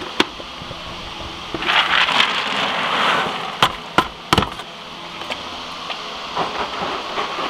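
Total Equine feed pellets poured from a plastic bucket into a feed tub, a rattling rush about two seconds in, followed by a few sharp knocks as the upturned bucket is tapped against the tub to empty it. Near the end, a horse crunching the pellets.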